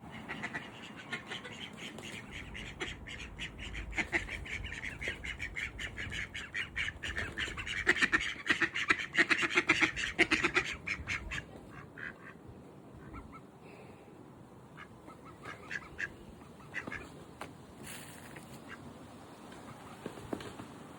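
Ducks quacking in rapid, overlapping calls, loudest about eight to eleven seconds in, then thinning to a few scattered quacks.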